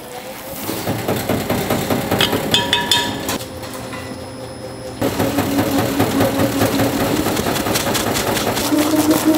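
Electric rice-cake pounding machine with a granite bowl, mashing and kneading steamed glutinous rice: a steady motor hum under a dense run of rapid knocks, getting louder about halfway through.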